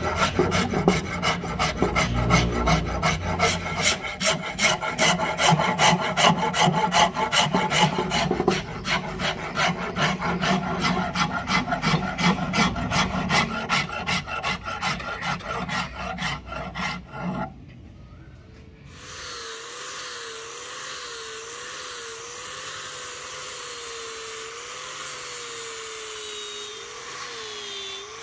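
Steel hand file rasping across a black-and-white ebony axe handle in quick, even back-and-forth strokes. The filing stops about 17 seconds in, and after a short pause a power sander with a sanding disc starts running, a steady hiss with a wavering motor whine.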